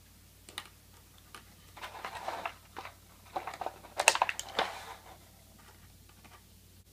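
Hands handling small plastic parts and a plastic packaging tray: a run of light clicks and crinkling, loudest about four seconds in.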